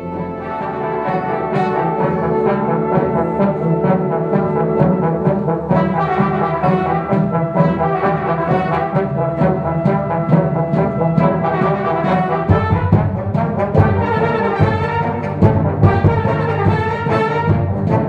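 A fanfare band of brass, saxophones and percussion playing film music, with euphoniums and tubas carrying the low line under steady rhythmic strokes. About twelve seconds in, the bass gets heavier.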